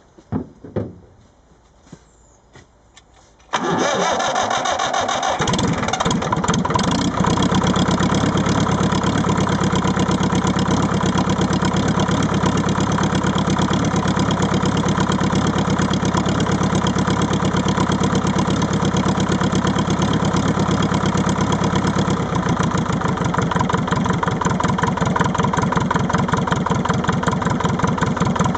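Leyland 1.5-litre four-cylinder diesel engine (15D) in a Leyland 154 tractor, started from cold. After a few light knocks it fires at about three and a half seconds and keeps running with a steady, rhythmic beat, which grows coarser about twenty seconds in. The owner takes the rough cold running for a misfire on one cylinder.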